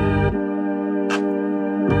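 Trap beat playing: sustained organ-like keyboard chords, with a single percussive hit about a second in. The deep bass drops out shortly after the start and comes back just before the end.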